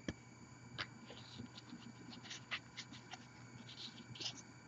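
Faint rustling and soft clicks of baseball trading cards being shuffled in the hands, with a paper-foil pack wrapper crinkling near the end.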